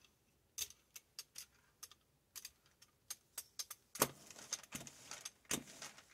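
Brayer rolling through thick, tacky black paint, giving a string of sharp sticky clicks and crackles. About four seconds in come louder rough rasping passes, as the roller is run across crumpled scrap paper.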